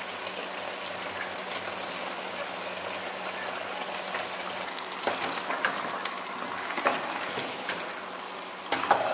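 Raw chicken pieces frying in hot browned masala in a pot, a steady sizzle. From about five seconds in, a spatula clicks and scrapes against the pot as the chicken is stirred.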